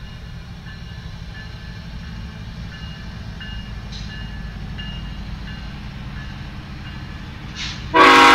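Freight train rumbling steadily past, growing slightly louder. Near the end a diesel locomotive's air horn starts up suddenly and loudly, several steady tones sounding together.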